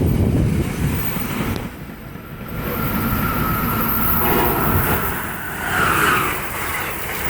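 A train running past, with wind buffeting the microphone. A steady high whine joins about halfway through.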